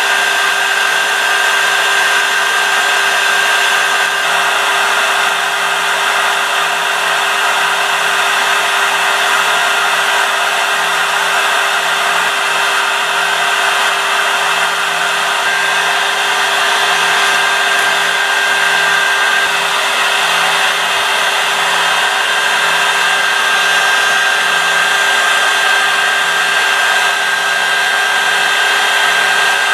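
CNC spindle motor running steadily at full speed, close to 24,000 RPM, driven at 400 Hz by a Bosch Rexroth EFC 5610 variable-frequency drive. It gives a constant high whine over a rushing hiss.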